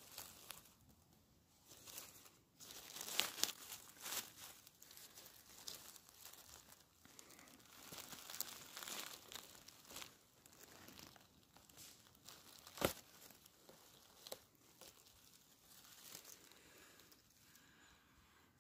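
Dry fallen leaves rustling and crackling under a hand clearing the leaf litter on the forest floor, in irregular spells with a few sharp clicks.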